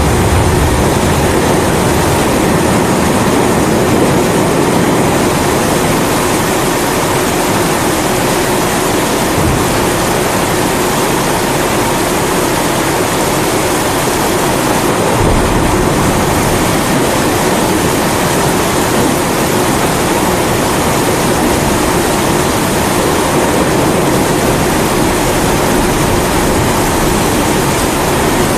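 Steady roar of a pressurised kerosene primus stove burner mixed with the even hiss of heavy rain, with a low rumble swelling in about nine seconds in and again about halfway through.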